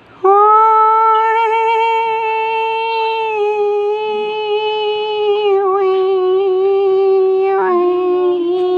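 A single voice sings one long, steady held note, like a triumphant 'ahh', stepping down to a slightly lower note about seven and a half seconds in.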